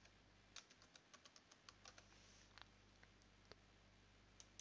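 Faint typing on a computer keyboard: a quick run of about ten keystrokes, then a few scattered ones. Near the end come a couple of mouse clicks.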